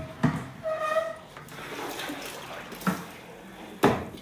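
Liquid sloshing and splashing in a large aluminium pot as it is scooped with a plastic bowl, with a few sharp knocks of bowl against pot, the loudest near the end.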